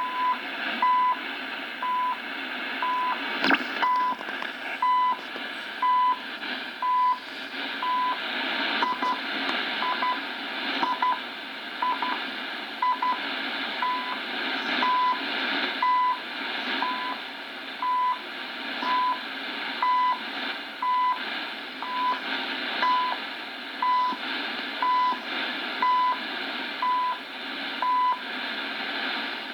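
CHU shortwave time-signal ticks: a short, steady beep once every second, heard through a shortwave receiver over hiss and fading static. One sharp static crack comes about three and a half seconds in.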